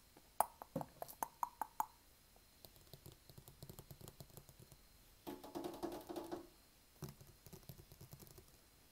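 ASMR hand sounds close to the microphone: a quick run of sharp taps and clicks in the first two seconds, then softer crackling and pattering. A short pitched sound is heard about five seconds in.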